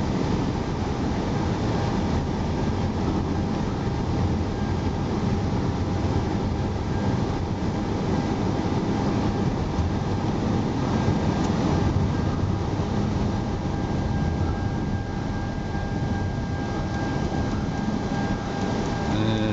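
Steady road, tyre and engine noise inside the cabin of a 2010 Toyota Camry LE while it is being driven.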